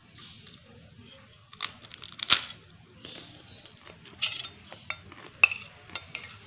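Metal spoon clinking and scraping against a glass bowl while scooping rice, a cluster of sharp clinks about two seconds in and another run of them in the second half.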